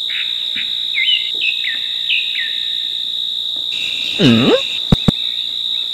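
Steady, high-pitched cricket-like insect trill, with short falling bird chirps over it in the first half. A brief swooping, voice-like sound comes about four seconds in, followed by two sharp clicks.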